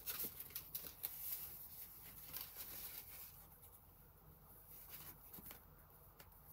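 Faint rustling and light taps of paper scraps being shuffled by hand and set down on the desk, mostly in the first half.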